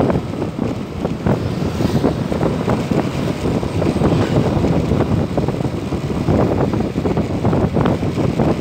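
Wind buffeting the microphone on a moving Yamaha NMAX 155 scooter, a steady rushing noise with the scooter's running and road noise beneath it.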